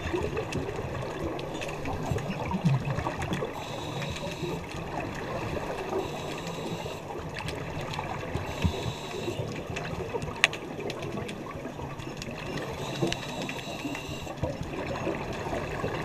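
Underwater scuba breathing: a regulator hissing on the inhale and exhaled bubbles gurgling, coming and going every few seconds, muffled through a GoPro's underwater housing. One sharp click sounds about ten seconds in.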